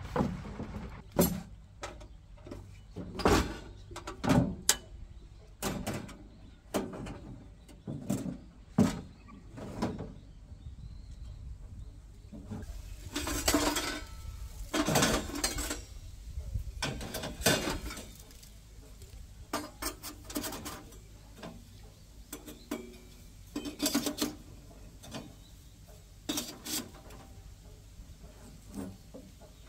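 Irregular knocks and clinks of metal camping gear being handled and set down, with a few longer scraping noises in the middle.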